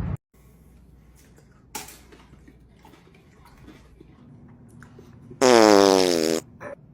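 A loud, buzzy fart lasting about a second, starting about five and a half seconds in, with a faint click earlier.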